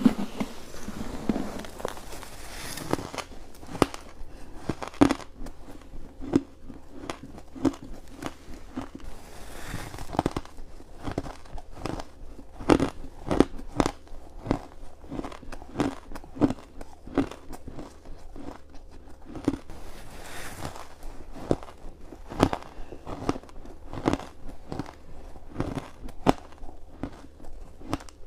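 Close-up crunching of ice being bitten and chewed: a steady run of sharp crackling crunches, several a second, with louder individual bites here and there.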